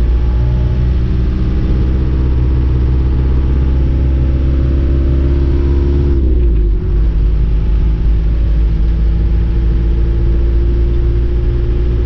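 Camper van's diesel engine running steadily while driving, heard from inside the cab as a loud low drone. Its note dips and recovers about halfway through.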